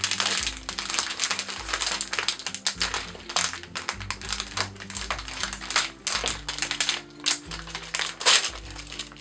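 A shiny blind-bag package crinkling and rustling in irregular crackles as it is torn open, over background music with a bass line.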